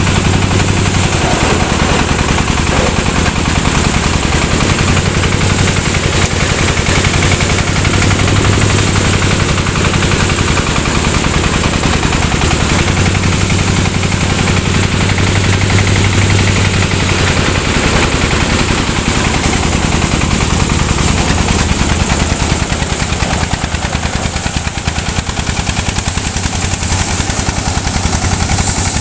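Diesel engine of a paddy threshing machine running steadily under load, with a loud, rapid exhaust rattle, while rice stalks are fed through its threshing drum.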